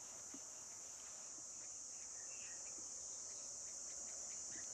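Insects chirring in a steady high-pitched drone, with a couple of faint short chirps over it.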